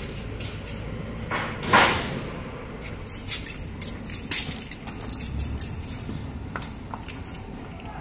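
Workshop clatter: scattered light metallic clinks and taps, with one brief loud hiss about two seconds in.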